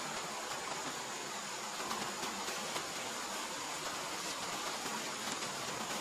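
Steady hiss of a stream running over rocks under a constant thin high tone, typical jungle insects, with a few faint rustles as a tarp is shaken out and hung over a bamboo pole.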